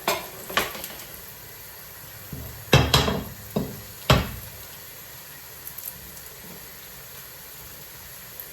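Syrniki (cottage-cheese cakes) sizzling in hot oil in a frying pan, with about six sharp clinks and knocks of a utensil against the cookware in the first four seconds; after that only the steady sizzle.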